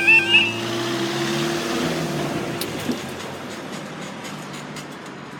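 A level crossing's warbling yodel alarm cuts off about half a second in. A Class 165 diesel multiple unit train then runs by with a steady engine hum and rushing noise that fade away.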